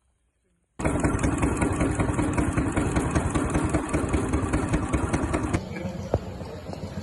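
A small engine running fast with a rapid, even beat. It starts suddenly about a second in and cuts off abruptly about five and a half seconds in, leaving a quieter steady background noise.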